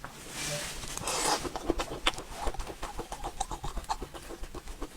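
Close-miked eating of soft mousse cake: a soft hiss for about a second near the start, then a run of small, wet mouth clicks while chewing.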